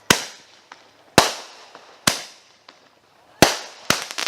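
Fireworks going off: about six sharp, loud bangs at irregular intervals of roughly half a second to a second, each echoing away.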